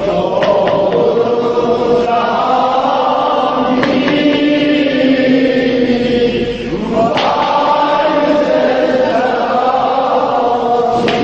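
A man chanting a Shia mourning elegy in Azerbaijani: long held notes that bend slowly between pitches, with a new phrase starting about four seconds in and again about seven seconds in.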